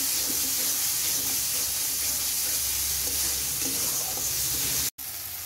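Spice paste of tomato, garlic and green chilli sizzling in mustard oil in a metal kadai while it is stirred with a flat spatula: the masala being fried down. The sizzle cuts out for a moment near the end and comes back quieter.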